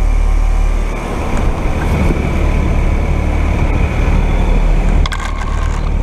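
2017 Carrier Comfort Series heat pump outdoor unit running in heat mode: a steady low hum from the compressor and condenser fan, heard close to the fan grille. Rough crackling runs over it, with a few sharp clicks about five seconds in.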